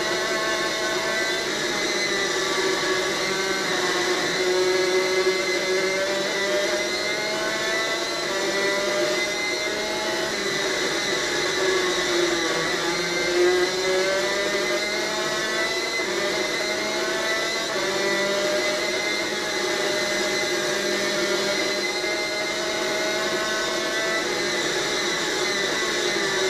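A superkart engine heard onboard at racing speed. Its pitch climbs steadily for several seconds at a time and then drops suddenly a few times, as the kart accelerates, shifts or lifts for corners, over a steady hiss.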